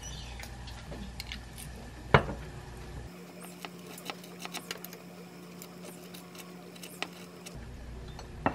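Kitchen handling sounds: a sharp knock about two seconds in, then a metal spoon lightly tapping and scraping as whole grain mustard is spread on a slice of bread on a glass plate, and another knock near the end.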